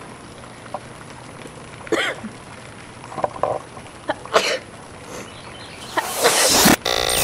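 A woman sneezing twice, about two and a half seconds apart, with a smaller breathy sound between. About six seconds in, a loud burst of noise cuts in.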